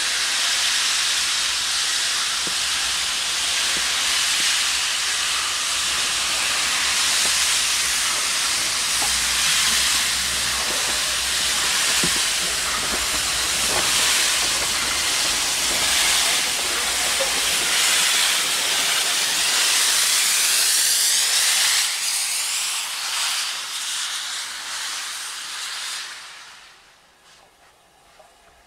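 Steam locomotive 46512, an Ivatt Class 2MT 2-6-0, letting off a loud, steady hiss of steam. The hiss eases off a few seconds before the end and then dies away.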